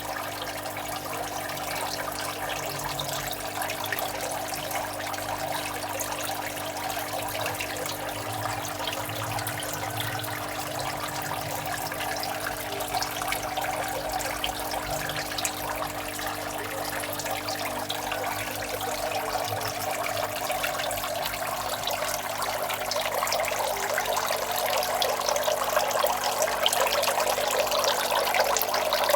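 Water trickling and splashing steadily into a goldfish tank, with a steady low hum underneath; the splashing grows louder over the last few seconds.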